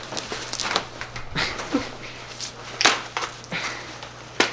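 Irregular sharp knocks and clicks of a broom handle and hard plastic as a BMW E46 steering wheel is levered at to free it from the steering column, with a faint steady hum underneath.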